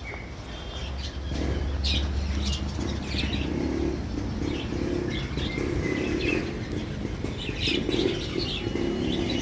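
Birds chirping, short high calls recurring every second or so over a steady low background.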